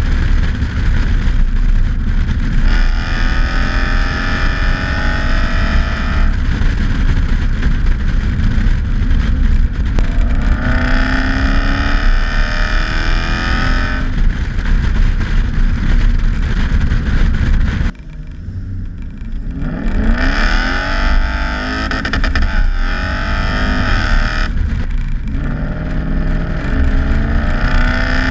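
Toyota 1UZ four-litre V8 revving up again and again under acceleration, its pitch rising through each pull. The level drops suddenly about 18 seconds in, then the engine climbs again.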